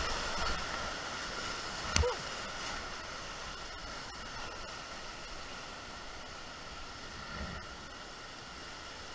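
Steady rushing of a flooded creek's muddy whitewater rapids around a running boat, with one sharp knock about two seconds in.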